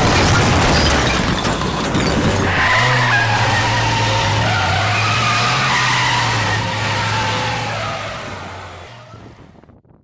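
Car crash sound effect: a wall of bricks smashing and clattering down, then a car engine running hard with tyres squealing as it skids away, fading out near the end.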